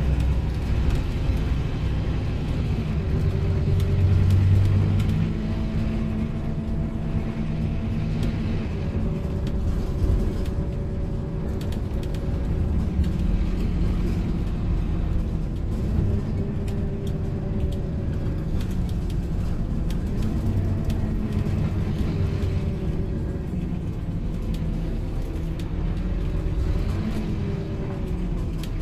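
Scania OmniLink single-deck bus heard from inside the cabin while driving: a steady engine and road rumble, with the engine note rising and falling several times.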